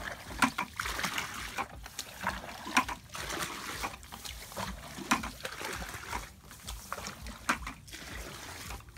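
Muddy water being bailed out of a ditch with a plastic bucket: irregular splashing and pouring, several splashes a second.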